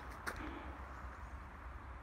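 Outdoor background noise with a low wind rumble on the microphone and an even hiss of distant traffic, broken by a couple of sharp clicks about a quarter second in.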